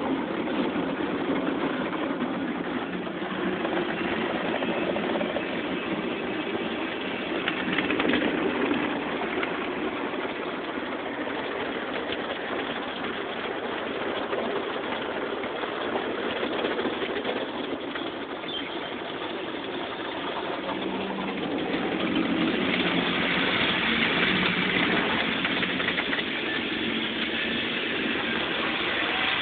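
Automatic car wash running over a car: a steady rushing noise of spray and machinery that grows louder and hissier about three-quarters of the way through.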